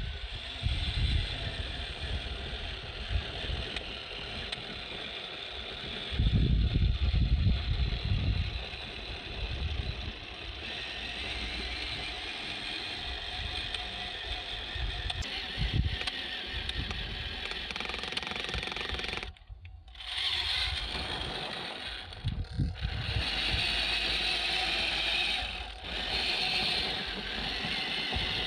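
1/10 scale RC Jeep Wrangler Rubicon crawler's electric motor and gearbox whining steadily as it crawls over loose gravel, with low rumbles that swell about six to nine seconds in. The sound briefly drops out about twenty seconds in.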